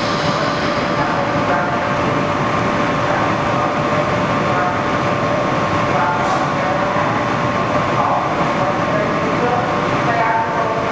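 Trains in an underground station: a steady rumble and hiss with a constant hum, echoing off the platform, and a faint falling high whine about six seconds in.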